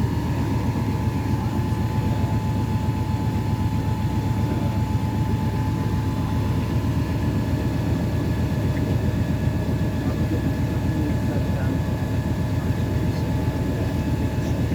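Tour boat's motor running steadily under way: an even low rumble with a faint constant whine on top.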